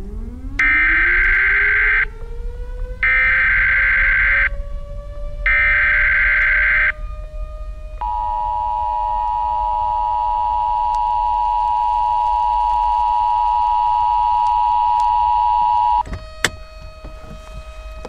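Emergency Alert System broadcast tones. First come three short bursts of the digital header, about a second and a half each with short gaps between them. Then the two-tone attention signal holds steady for about eight seconds and cuts off sharply. Underneath, a low tone rises in pitch over the first several seconds and then holds, and there is a click just after the attention signal stops.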